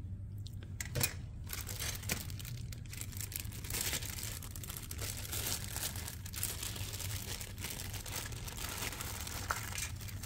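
Plastic packaging crinkling and rustling as bagged plastic model kit sprues are handled, with a few sharp plastic clicks, two of them about one and two seconds in.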